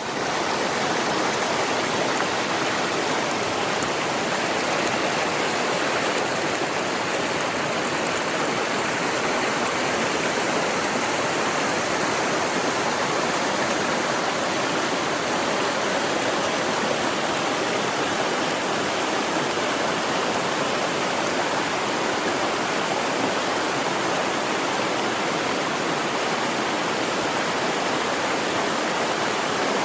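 Mountain stream flowing steadily, a loud, even rush of water.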